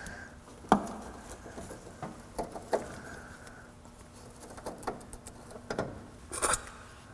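Gloved hands threading a steel brake line fitting into a proportioning valve by hand: scattered light metallic clicks and taps with soft scraping and rustling.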